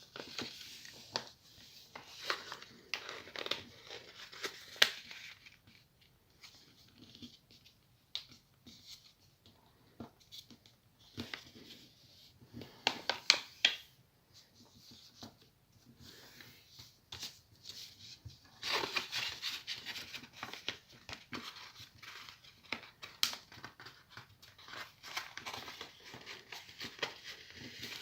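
A sheet of paper being handled and folded by hand, crinkling and rustling with sharp creasing clicks. It comes in three spells of activity with quieter pauses between them.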